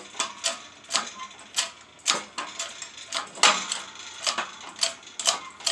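Irregular sharp metallic clicks and knocks, about two or three a second, from working a bearing splitter set in a shop press to press the bearing off a Ford 9.75-inch rear axle pinion shaft.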